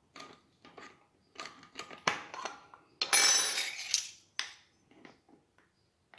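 Measuring spoons clinking and tapping against a bowl and tin while baking powder is spooned out and levelled, with a louder rustling scrape lasting about a second, three seconds in.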